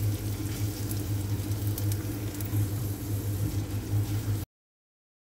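Chopped onion sizzling in hot oil in a karahi as it is stirred, over a steady low hum. The sound cuts off suddenly near the end.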